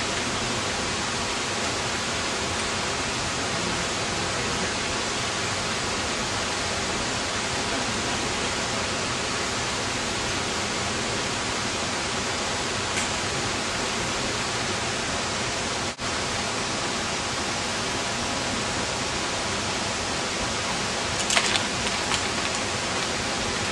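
Waterfall pouring, a steady, even rush of falling water that cuts out for an instant about two-thirds of the way through.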